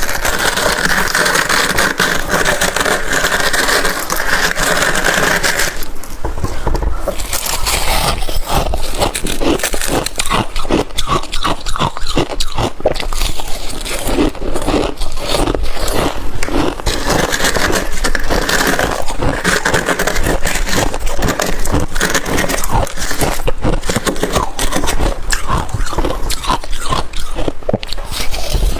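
Freezer frost and hard ice crunched and chewed close to the microphone. For about the first six seconds there is a dense, continuous scratchy crunching. After that it becomes a fast run of sharp, separate crunches as the ice is bitten and chewed.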